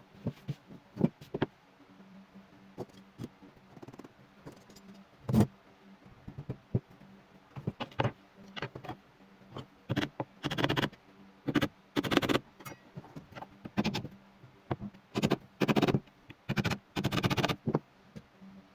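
Workshop handling sounds: scattered light knocks and clicks of wood and tools, then a series of short scraping strokes, roughly one a second, in the second half.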